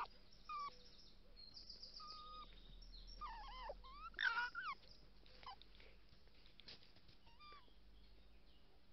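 Red fox cubs whining and squealing as they play-fight: a string of short, high-pitched calls, busiest about three to five seconds in and sparser after.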